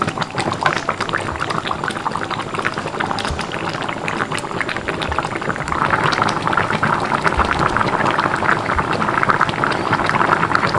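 Pot of coconut-milk curry with cassava leaves boiling, a dense crackling bubble that gets louder about six seconds in.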